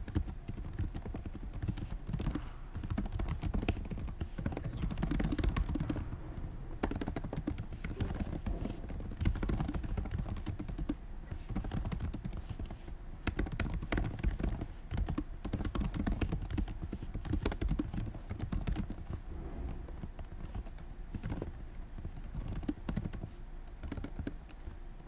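Computer keyboard typing: rapid, irregular keystrokes with brief pauses.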